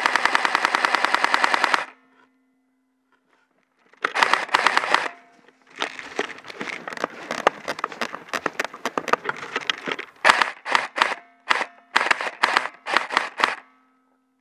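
Airsoft M4A1 electric rifle firing on full auto: a long rapid burst that stops about two seconds in, a short burst at about four seconds, then a string of short bursts and single shots that ends near the close.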